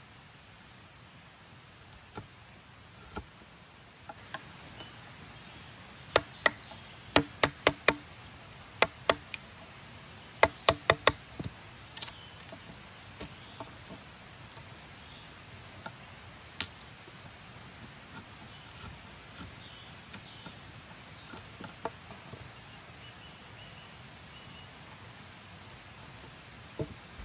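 Wooden mallet striking a wood chisel to cut a notch in a green log: a quick run of about seven sharp knocks, then after a short pause another run of about five, with a few single knocks after. Between the knocks the chisel is pared through the wood by hand, which is much quieter.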